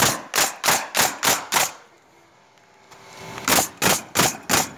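Pneumatic coil roofing nailer firing nails through a solar tube skylight's flashing flange into the roof, about three shots a second: six in a quick run, a pause of about two seconds, then four more.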